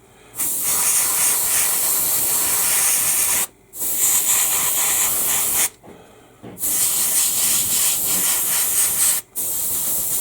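Airbrush spraying paint: a steady hiss of air that starts about half a second in and cuts off briefly three times as the trigger is released and pressed again.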